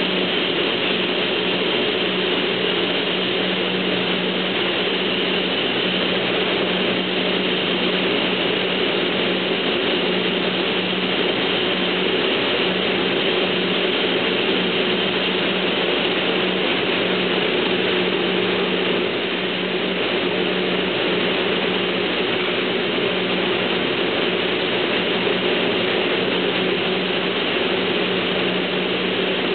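Automatic wet spray-painting line for car bumpers running: a steady machine drone with a constant low hum under an even hiss, from the booth's painting robots, spray guns, conveyor and ventilation.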